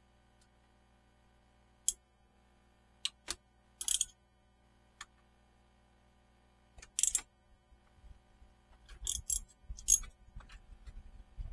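Metal tools and parts being handled while changing spark plugs: scattered sharp metallic clicks and clinks, a few at a time and more frequent in the second half, over a faint steady hum.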